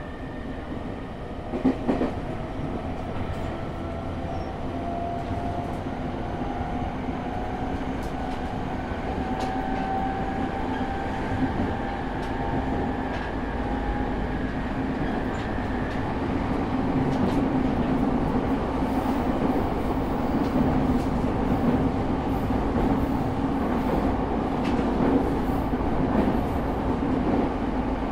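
Inside a JR East E217-series train car, the Mitsubishi GTO-thyristor VVVF inverter and MT73 traction motors whine in several tones that rise steadily in pitch as the train accelerates, fading out about halfway through. Under them the wheel and rail running noise grows louder with speed, with a couple of sharp knocks about two seconds in.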